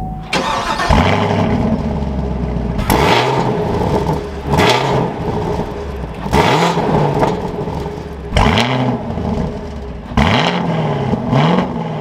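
The 6.2-litre naturally aspirated V8 (LT1) of a 2021 Chevrolet Camaro SS, heard through its quad-tip exhaust. It flares loudly about a second in and then idles, before it is revved in about six short throttle blips, each rising and falling back.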